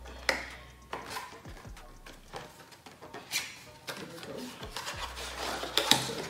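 Hands working open the packaging of a body yogurt gift set: scattered rubbing, scraping and clicking, loudest near the end.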